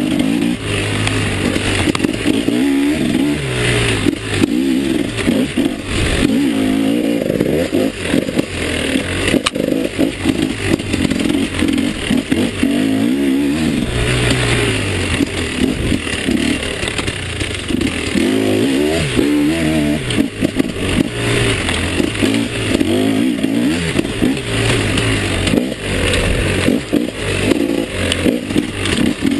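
Enduro dirt bike engine rising and falling in pitch over and over as the throttle is worked, with knocks and clatter from the bike going over rough ground.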